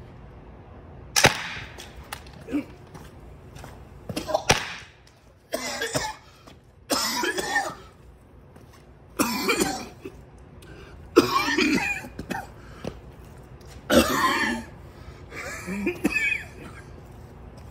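Two sharp pops from a PepperBall LifeLite Mobile launcher about three seconds apart, then a man coughing hard in about six fits, one every couple of seconds, from pepper powder he has breathed in.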